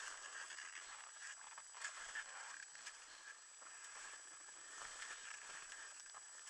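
Faint hiss and scattered light knocks of a ski mountaineer moving over snow, with a steady high whine.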